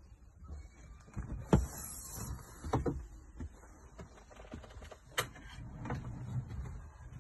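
Irregular knocks and clatter over rumbling handling noise, as someone moves about and climbs down inside the motorhome. The sharpest knock comes about one and a half seconds in, and there are more about three and five seconds in.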